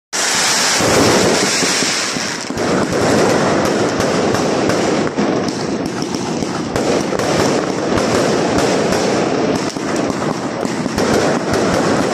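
Fireworks going off in a dense, continuous crackle of rapid bangs and pops, with no pause.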